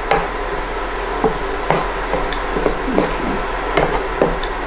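Wooden spatula stirring diced onion and garlic in a frying pan, knocking and scraping against the pan roughly twice a second, over a light sizzle and the steady hum of an induction hob.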